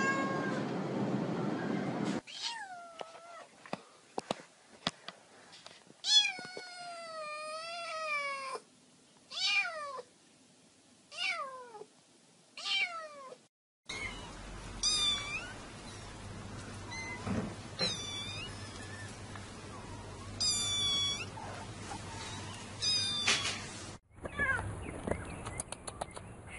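Domestic cats meowing in a string of separate calls: several short meows and one long, wavering meow, then higher-pitched meows after an abrupt change of background, as if spliced from different recordings.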